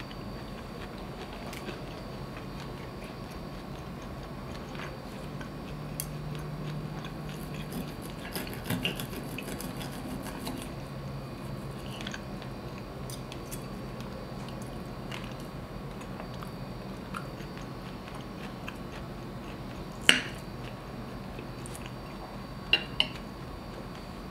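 Steel knife and fork cutting a piece of pan-fried pork steak on a ceramic plate, with scattered clinks of cutlery against the plate. There is one sharp clink late on and two quick ones just before the end.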